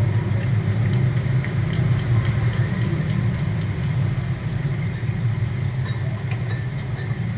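A steady low hum throughout, with light clicks of a spoon against the container through the first few seconds as slime glue is stirred.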